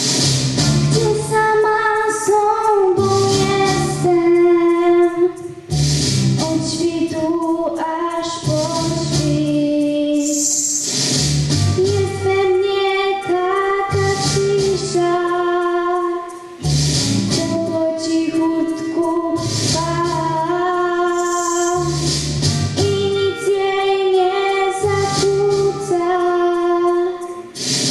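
A girl sings a slow melody into a microphone, amplified, over a recorded backing track with bass and soft high cymbal-like swells. The song pauses briefly three times, between phrases.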